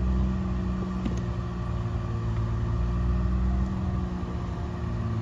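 John Deere Gator utility vehicle's engine running steadily as it drives along a dirt farm track.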